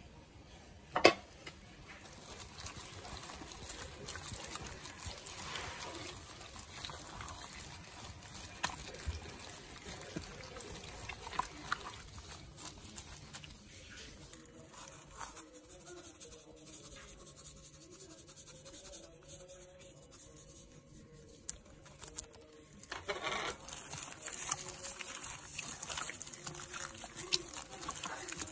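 Raw chicken wings being mixed by a gloved hand in a wet, thick marinade: soft wet squelching and sloshing. A sharp knock comes about a second in, and the mixing gets busier and louder near the end.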